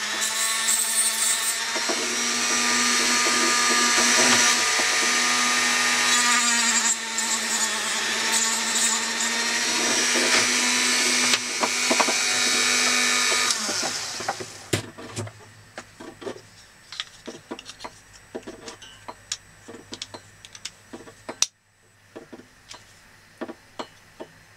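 Dremel rotary tool grinding the rebuilt side lug of a plastic camera quick-release mount, a steady whine that cuts off after about thirteen seconds. Then scattered light clicks and taps of the plastic parts being handled, with one sharp click near the end, as the mount is fitted into its bike support.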